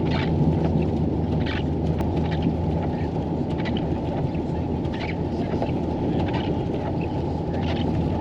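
Pickup truck with a camper driving slowly on a snow-covered highway, heard from the cab: a steady engine hum and road rumble, with faint scattered ticks over it.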